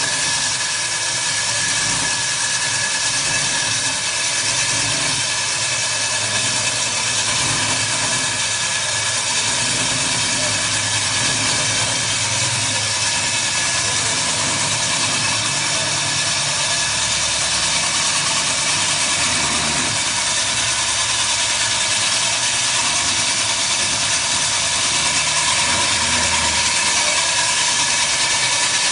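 Stand-mounted diamond core drill running steadily, its core bit cutting down into a reinforced concrete floor: an even whine over a harsh hiss, getting a little louder near the end.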